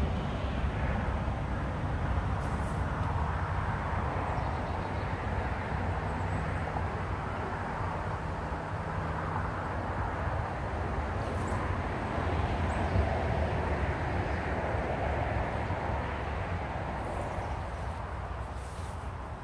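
Steady rumble of vehicle noise with a low hum, swelling and fading slowly.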